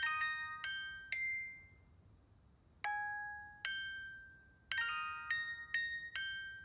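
Instrumental music: a slow, sparse melody of chiming, bell-like notes. Each note rings and fades, and there is a pause of about a second and a half after the first few notes.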